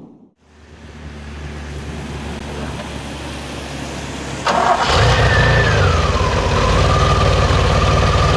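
DeLorean DMC-12's V6 engine starting: after a few seconds of low steady hum, it fires abruptly about four and a half seconds in, flares briefly, then settles into a steady idle, with a whine that falls in pitch as the revs drop.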